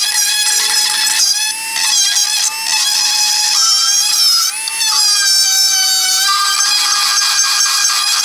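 Battery-powered Dremel rotary tool running at high speed with a steady high whine, its pitch sagging and wavering as the bit digs hardened sealant out of a groove in an engine part. After about six seconds the whine gives way to a rougher, noisier grinding.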